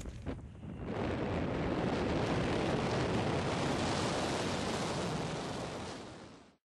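Steady wind rushing across the camera microphone during a parachute descent, fading out near the end.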